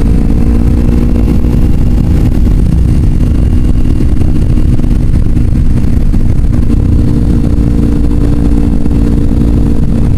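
Kawasaki Ninja 250's parallel-twin engine running at a steady cruise while riding, its pitch almost constant, under a heavy low wind rumble on the microphone.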